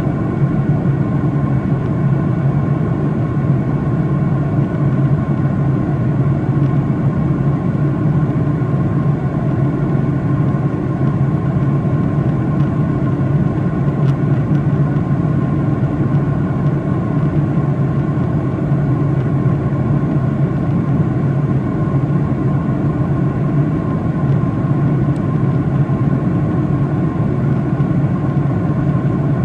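Boeing 737-800 cabin noise in flight, heard from a window seat beside the wing: a steady jet-engine drone from the CFM56-7B turbofan with a low hum and a few faint steady higher tones, over a constant rush of air.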